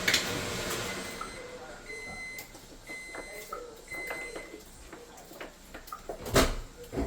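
Kitchen handling sounds: a steady rushing noise that dies away about a second in, then scattered light clicks and knocks of containers and utensils with a few faint short high tones, and one loud knock about six seconds in.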